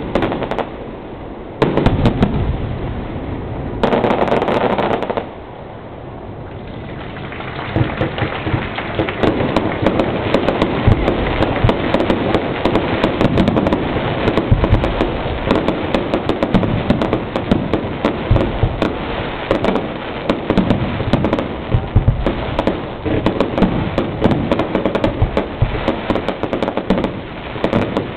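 Aerial fireworks going off: separate bangs in the first seconds, a short lull, then from about seven seconds in a dense, continuous crackle of many small pops from crackling shells bursting together.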